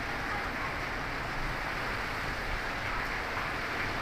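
Heavy rain falling steadily, an even hiss of downpour.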